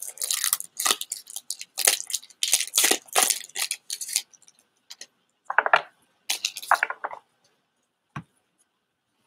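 Foil wrapper of a Pokémon TCG booster pack crinkling and tearing as it is opened, for about four seconds. Then the cards are drawn out with two shorter scraping rustles and a single light tap near the end.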